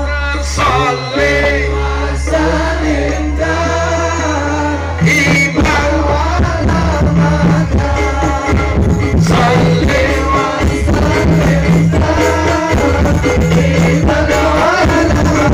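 Sholawat (Islamic devotional song) sung by voices over amplified music through a loud PA sound system. About five seconds in, a regular beat comes in under the singing.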